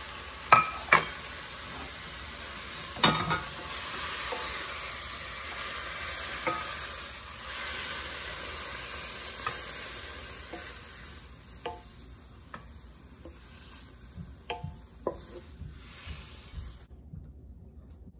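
Pea sprouts and their sauce sizzling in a hot stainless-steel wok while a wooden spatula scrapes and knocks against the pan. The sizzle dies down about two-thirds of the way through, leaving scattered taps of the spatula on the wok.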